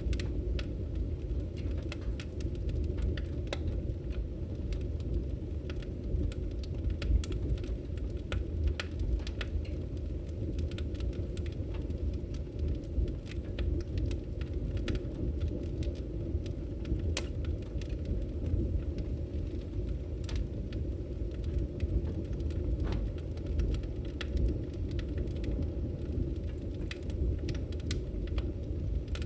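Wood fire burning in a fireplace: a steady low rumble of the flames with sharp crackles and pops at irregular intervals.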